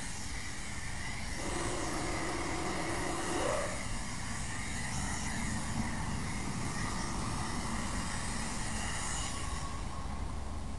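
Steam cleaner's nozzle hissing steadily as a jet of steam is sprayed over a car's dashboard and windshield. The hiss falls away about a second before the end, leaving a low hum.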